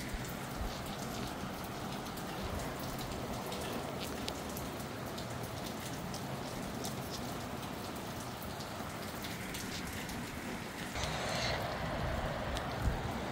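Steady rain falling, with separate drop hits clicking over the rush. The rush swells louder near the end.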